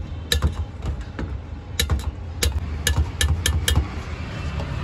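A metal spoon knocking and scraping against a stainless steel jug as thick peanut butter is worked off it into the jug: a string of sharp clinks, bunched together about two seconds in, over a steady low hum.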